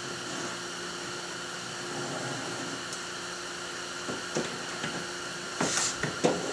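Steady background hum, then a few knocks and scrapes from about four seconds in, loudest near the end, as a kayak's mounting board is pulled off the side rail and set down on the hull.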